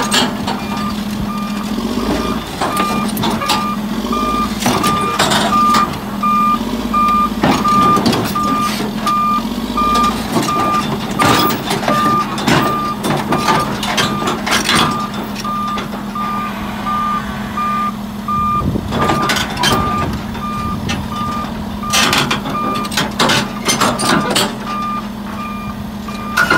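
Caterpillar D6R bulldozer reversing off the back of a lowboy trailer: its backup alarm beeps steadily over the diesel engine running. Repeated loud metal clanks come from the steel tracks on the trailer deck.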